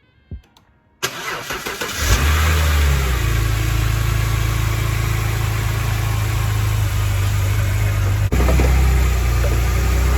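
2006 BMW 330xi's 3.0-litre inline-six cranked by the starter about a second in, catching and settling into a steady idle on its first start after the radiator replacement and coolant refill. The sound cuts out briefly about eight seconds in, then the idle carries on.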